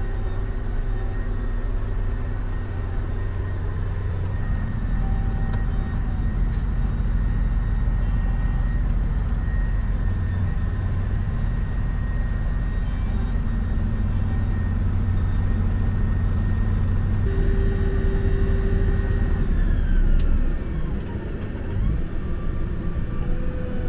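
Farm tractor engine running steadily with a deep rumble, with a high whine above it. About twenty seconds in, the whine falls in pitch and the sound eases briefly.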